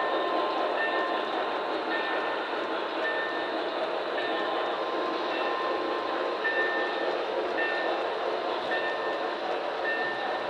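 Model freight train cars rolling past along the layout's track: a steady rushing rumble of wheels on rail, with short high tones every second or so.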